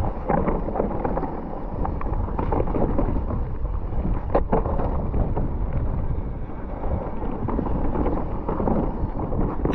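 Mountain bike descending a dirt singletrack at speed: wind buffeting the camera microphone over the rumble of the tyres on dirt, with sharp clicks and rattles from the bike, the strongest about four and a half seconds in.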